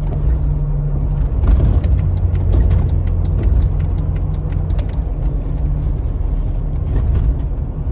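Cabin noise inside a Jeep on the road: a steady low engine and road rumble, with many small clicks scattered through it.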